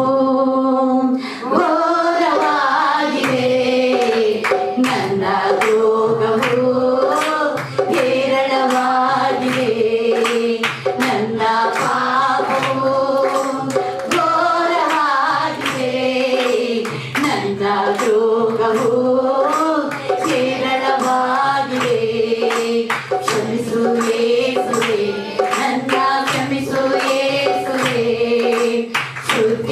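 A man singing a Kannada Christian worship song with wavering, drawn-out notes, over a musical accompaniment with a steady beat and frequent sharp percussion hits.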